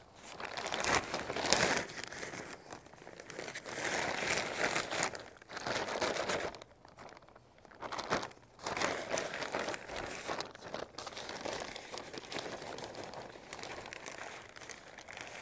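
Irregular rustling and crinkling from hands handling plants, potting soil and plastic nursery pots while potting up a garden container, in uneven bursts with short quieter gaps.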